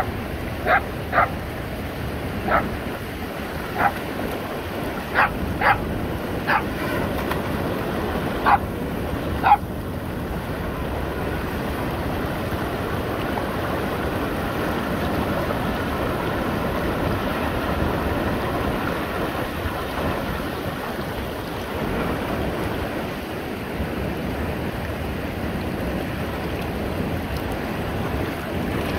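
A dog barking, about nine short barks over the first ten seconds, then a steady rush of shallow river water running over rocks.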